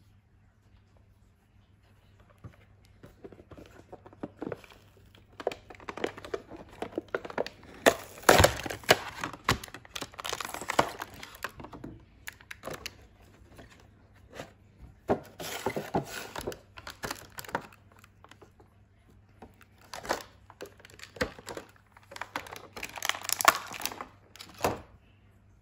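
Clear plastic blister packaging being handled and pulled apart by hand: crinkling, crackling and tearing in irregular bursts with sharp clicks and knocks, loudest about eight seconds in and again near the end.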